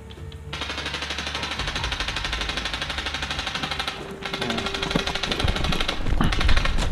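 Airsoft rifle firing on full auto: long strings of rapid, evenly spaced cracks, with a short break about four seconds in before the firing resumes.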